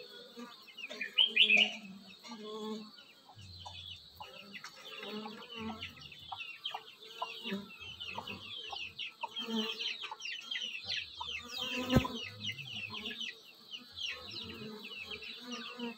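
Chickens clucking, with many quick high falling peeps like chicks calling, over the hum of honeybees around a nest entrance. A single sharp click sounds about three-quarters of the way through.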